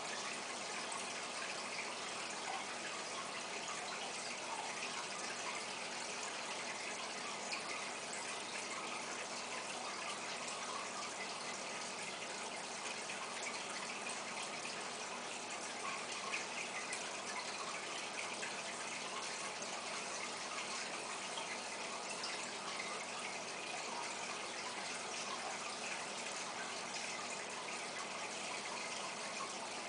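Steady splashing and bubbling of aquarium water, from the tank's filter return and air-driven sponge filter.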